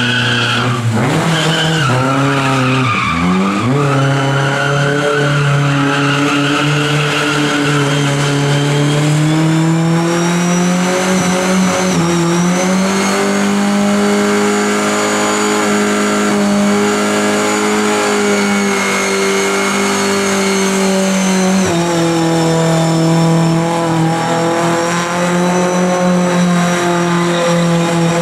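Lada saloon doing a burnout and donuts: the engine is held at high revs while the rear tyres spin and squeal. The revs dip about three seconds in, climb again around ten to twelve seconds in, hold high, and then drop suddenly a little past the twenty-second mark.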